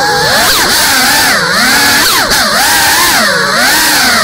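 GEPRC CineLog35 cinewhoop's motors and propellers whining in flight. The pitch swings up and down about once a second as the throttle changes.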